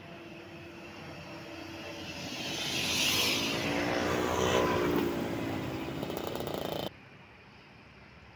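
Tour bus driving past close by, its engine and tyre noise building as it approaches and the engine note falling in pitch as it goes by. The sound cuts off abruptly about seven seconds in, leaving quieter road noise.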